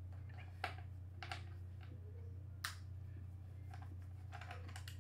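Scattered sharp clicks and taps of a screwdriver and small plastic parts on an airsoft rifle's plastic body during disassembly, about six in all, over a steady low electrical hum.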